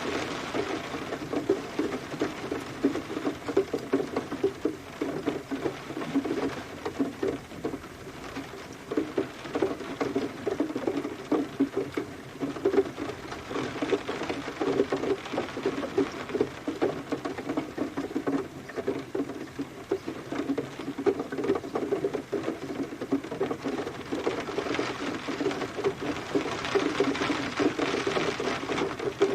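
Rain pattering on a surface: a dense, uneven stream of drops that runs steadily.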